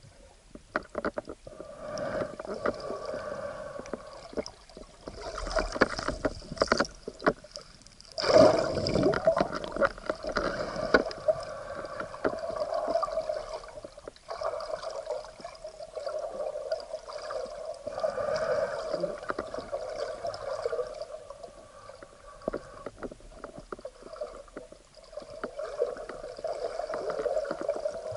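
Muffled water sloshing and bubbling against an action camera's waterproof housing, in irregular surges, with the strongest surge about eight seconds in.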